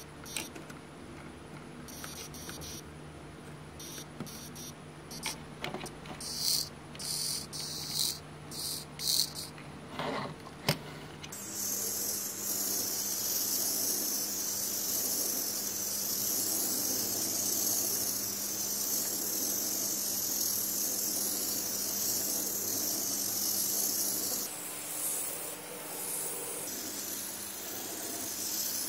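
High-pitched whine of a tiny 1:76-scale Turbo Racing RC car's electric drive motor. First comes a handful of short throttle bursts, then a wavering run of about thirteen seconds as the car drives, which cuts off sharply, then a few fainter bursts near the end.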